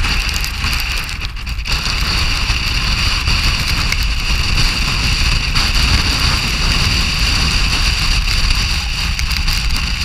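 Storm wind blasting and rumbling against the microphone, with a steady hiss of wind-driven snow or spray.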